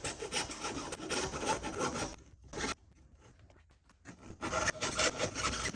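Flat file rasping back and forth in quick strokes, filing the edge of a drilled hole in a thin, soft RV baggage door to fit a cam lock. The strokes stop about two seconds in, with one short stroke in the pause, and start again after about four seconds.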